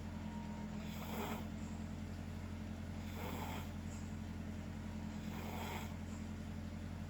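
A sleeping person snoring, with three noisy breaths about two seconds apart over a steady low hum.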